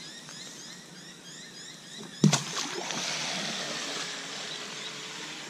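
A radio-controlled jet boat is set down on the water with a sharp splash about two seconds in. Its water-jet drive then runs, a steady hiss of spraying water as the boat pulls away.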